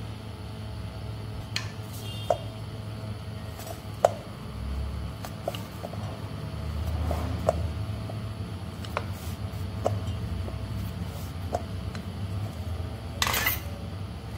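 Light, scattered taps and clicks of kitchen utensils, about a dozen at uneven intervals, over a steady low hum. A short scraping rustle comes near the end.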